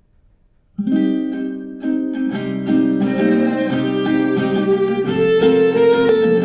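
Instrumental introduction of a Neocatechumenal psalm song: a small ensemble of strummed acoustic guitar with violin, starting sharply about a second in after a brief silence. Guitar chords strike in a steady rhythm under held violin notes.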